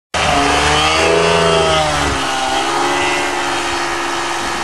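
Small single-engine ski plane's engine and propeller running up. The engine speed rises and falls back over the first couple of seconds, then holds steady and slowly fades as the plane taxis off across the snow.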